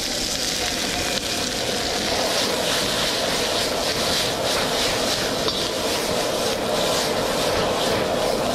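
High-powered propane wok burner running with a loud, steady jet roar while vegetables sizzle and are tossed in the wok. Repeated surges of hiss come as the food is flipped through the flames.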